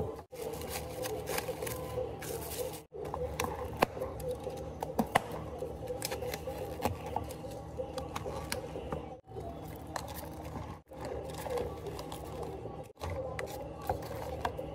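Light clicks and rustles of plastic cups, dome lids and paper cup sleeves being handled on a café counter, over a steady hum. The sound drops out abruptly several times.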